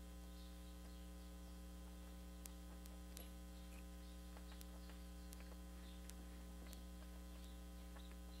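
Low steady mains hum, with a few faint scattered clicks from a hand splining tool's roller wheel pressing spline into a screen frame's groove.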